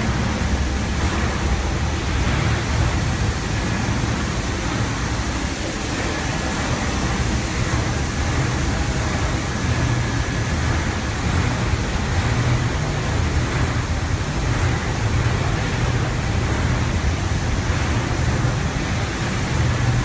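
Automatic carpet washing machine running: a steady motor and pump hum under a continuous wet rushing noise as its rotating brushes scrub a rug under water jets.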